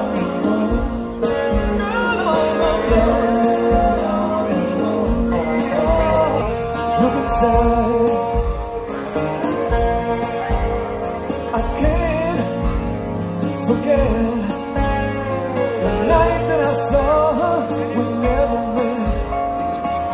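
Live rock band playing a slow song: a male lead voice singing over acoustic guitars and a steady drum beat.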